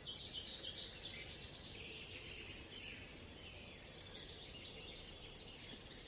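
Birds chirping and twittering, with a high, thin, falling whistled call twice, each about half a second long and the loudest sounds, and two sharp ticks close together about four seconds in.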